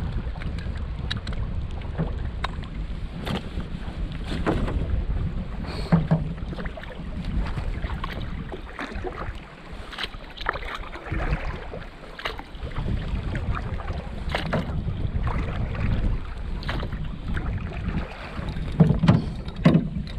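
Canoe being paddled across a choppy lake, with wind rumbling on the microphone and water slapping the hull. Irregular sharp knocks and splashes come every few seconds, and the loudest cluster comes near the end.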